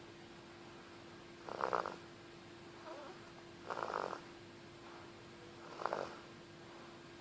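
A sleeping animal snoring: three short snores about two seconds apart, over a steady faint hum.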